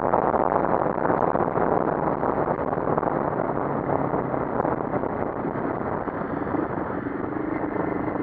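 CFMoto 400NK motorcycle's parallel-twin engine running while the bike is ridden in traffic, growing gradually quieter.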